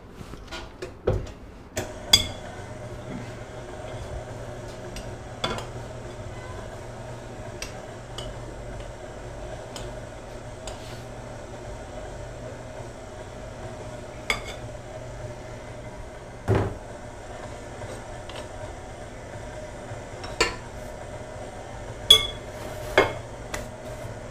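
KitchenAid Artisan stand mixer running steadily with its dough hook kneading bread dough, with a few sharp knocks and clinks against the stainless steel bowl.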